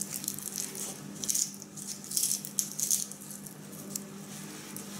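Papery garlic cloves rustling and crackling against a plastic tub as they are handled and pushed into loose potting soil, in short irregular scratchy bursts that thin out after about three seconds, over a faint steady low hum.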